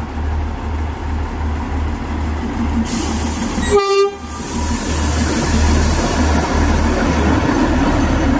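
Narrow-gauge NDM-1 diesel locomotive passing close by, its engine a low pulsing throb, followed by the louder running noise of its coaches' wheels on the rails. A brief horn toot sounds about four seconds in.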